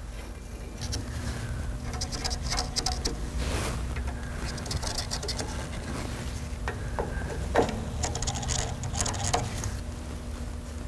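Handling noise from a transmission cooler being held and shifted against a truck's radiator support: light scrapes, rustles and several sharp clicks of metal on metal, over a low steady hum.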